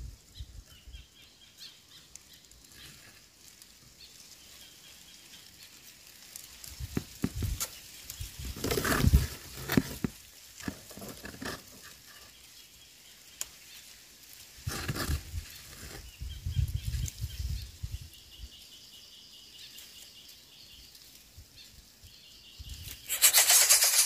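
Greater coucal at its grass nest: scattered rustling of dry grass and flapping of wings, in short bursts with quiet between, loudest about a third of the way in and again around two-thirds. Music starts about a second before the end.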